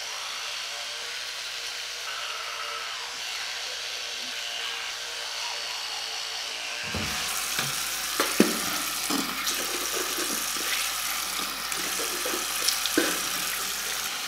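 Water running from a bathroom mixer tap into a ceramic basin, a steady hiss at first; about seven seconds in it turns louder and uneven, with splashes and a few sharp splats as hands and face meet the stream.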